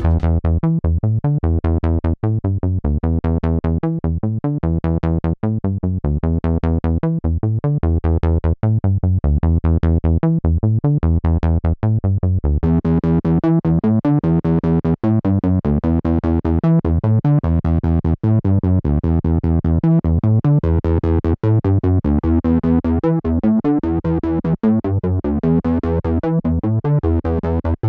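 Synth bass from a Korg Monologue playing a fast, driving bassline that repeats a short riff about every three seconds. About halfway through, a Boss OD-3 overdrive pedal is switched in and the tone turns grittier and brighter.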